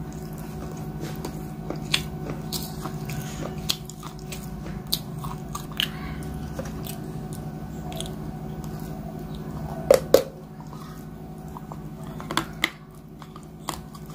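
Close-miked biting and chewing of lumps of grey clay: moist crunching with scattered sharp snaps, the loudest two about ten seconds in, over a steady low hum.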